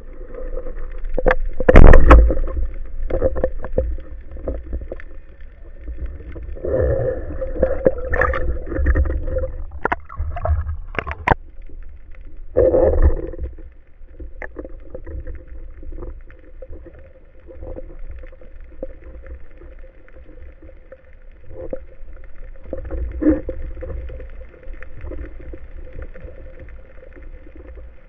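Underwater camera sound on a wooden band speargun: a loud sudden thump about two seconds in as the gun fires, then knocks, gurgling and rushing water, with a faint steady hum from the camera housing.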